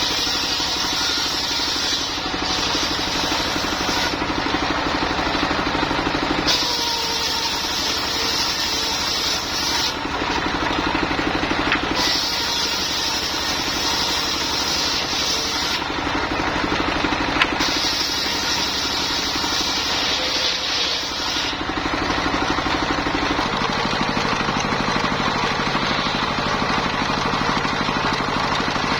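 Engine-driven mobile sawmill running steadily, with a harsh high sawing hiss that comes and goes every few seconds as the blade cuts through lamtoro wood. Near the end the engine's note shifts.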